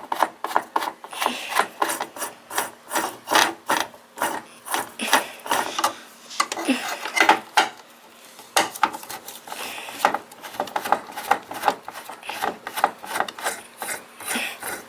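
Repeated scraping, rubbing and clicking of hard computer parts being worked loose and removed from a desktop PC case, several uneven strokes a second with brief lulls.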